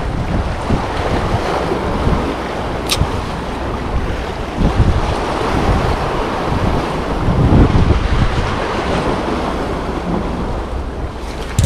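Wind buffeting the microphone in uneven gusts over the wash of surf. A single short click sounds about three seconds in.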